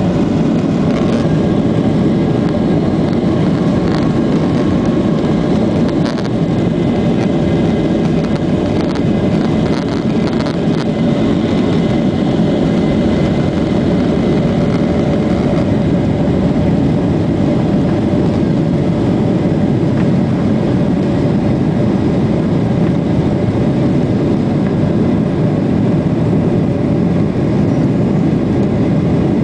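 Cabin noise of a Boeing 737-800 on its takeoff roll and initial climb, heard from a window seat over the wing: its CFM56-7B engines run at takeoff thrust in a steady, loud roar with a hum held at one pitch. Light rattles and knocks come through the first dozen seconds or so, then the sound runs smooth.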